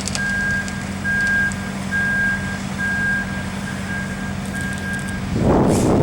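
Heavy truck's diesel engine running with its reversing alarm beeping steadily, about once a second, as the truck backs up; near the end the beeping stops and a loud burst of hiss and rumble follows.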